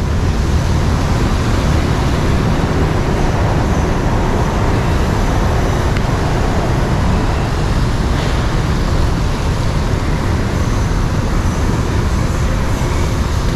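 Steady city road traffic: a continuous mix of engines and tyres with a heavy low rumble.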